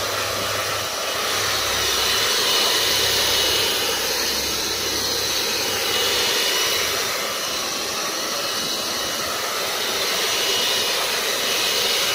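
Electric heat gun running steadily, its fan blowing hot air with a thin high whine, heating a seat cover so the material goes soft for fitting.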